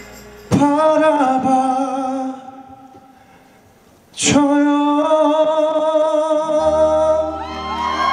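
Male vocalist singing live into a microphone with a band: two long held notes with vibrato over sparse accompaniment, with a quiet gap between them. Near the end the bass and the rest of the band come in.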